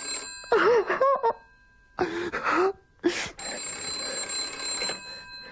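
Telephone bell ringing: one ring running on into the first half second, then a sharp click and another ring of about a second and a half, starting a little over three seconds in. Brief wordless voice sounds come in the gap between the rings.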